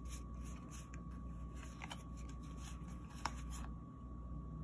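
Linen-finish tarot cards being thumbed through by hand: a run of soft, light card clicks and slides, with one sharper snap about three seconds in, stopping shortly after.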